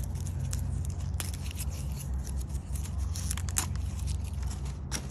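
Leaves being pulled and torn off the base of a pineapple crown by hand: scattered crackling snaps and scrapes over a steady low hum.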